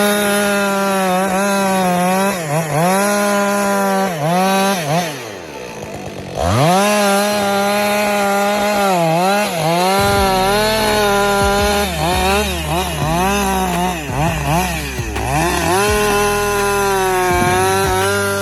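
Stihl MS 881 chainsaw (a large 121.6 cc two-stroke) running at full throttle in a cut, its high note dipping again and again as the chain bogs in the wood and then recovering. About five seconds in, the engine briefly falls to a lower, quieter note before revving back up. Past halfway, a low steady rumble joins it.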